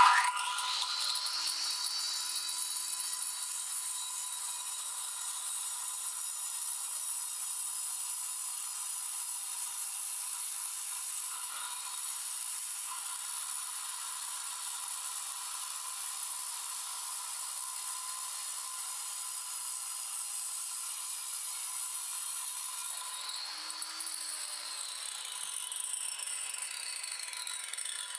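Angle grinder cutting a chamfer into a brick: a steady high-pitched whine over a grinding hiss. About five seconds before the end the level drops and the whine falls away as the grinder winds down.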